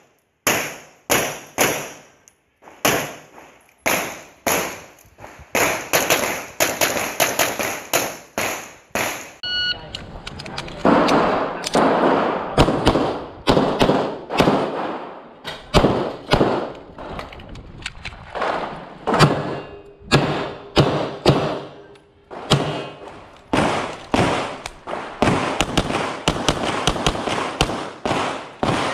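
Handgun shots fired in quick strings while shooting a practical-shooting stage: sharp cracks about every half second to a second, with faster runs of shots, growing denser and closer together from about ten seconds in.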